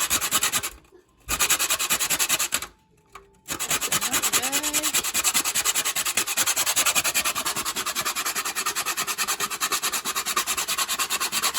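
Whole nutmeg rubbed quickly back and forth on a small hand grater: a fast, even rasping of several strokes a second, with two short pauses near the start.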